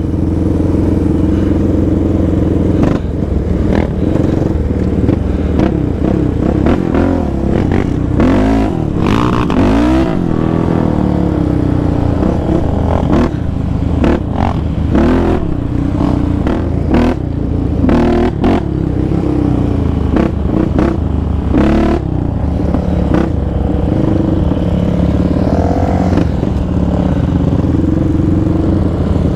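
Yamaha Raptor 700 quad's single-cylinder four-stroke engine running at a slow ride, the pitch rising and falling with the throttle several times. Short clatters and knocks over it as the quad rolls along a gravel road.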